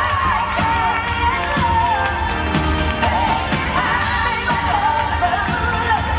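Pop song with a lead vocal over a steady beat, played through an arena's sound system.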